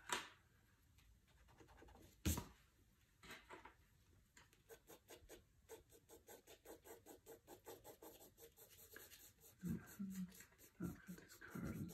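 Pencil scratching on sketchbook paper in quick, even shading strokes, about four or five a second, after two sharp knocks in the first few seconds.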